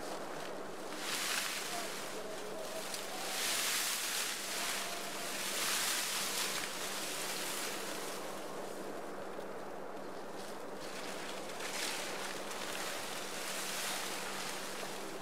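Dry sugar cane leaves and stalks rustling in several swells as an Asian elephant gathers tied cane bundles with her trunk and swings them up onto her back.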